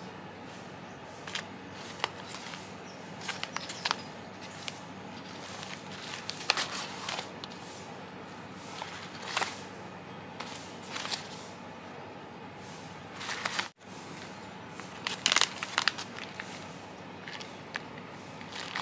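Plastic tea pouches and bubble wrap rustling and crinkling as they are handled, in scattered short crackles. The sound cuts out for an instant a little past the middle.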